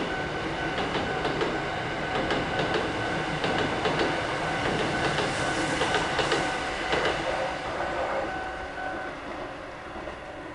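Shin-Keisei 800 series electric train passing over a level crossing, its wheels clacking over rail joints as it moves away and grows quieter. The level crossing's warning bell rings in a steady repeating ding and stops about nine seconds in.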